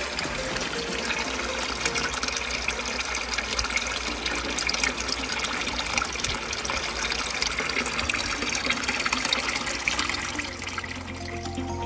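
Running water of a small stream splashing steadily, a dense hiss full of fine bubbling ticks.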